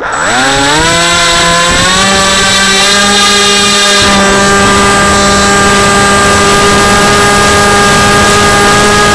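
Teksumo flying wing's electric motor and enlarged propeller spinning up at launch, its whine rising in pitch over the first two seconds, then running steady at full throttle. Heard close up from a camera on the plane, over a rush of air.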